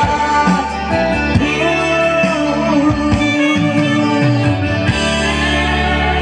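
Live band music with a guitar prominent, playing continuously.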